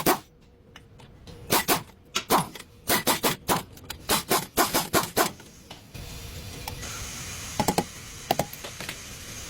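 A quick series of sharp knocks and scrapes, about a dozen in a few seconds. After an abrupt change to a steady hiss, a few more knocks follow near the end.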